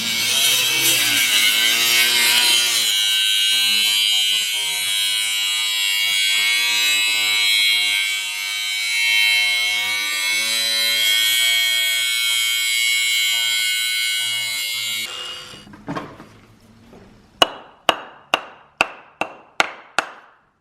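A power tool cutting brick, running under load for about fifteen seconds with its pitch wavering, then stopping. Near the end, a run of about ten sharp taps, roughly three a second.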